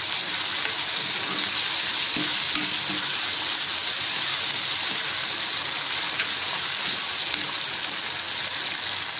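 Onions, tomato, dried red chillies and curry leaves sizzling in hot oil in a kadai, stirred with a metal spatula. The sizzle is a steady hiss.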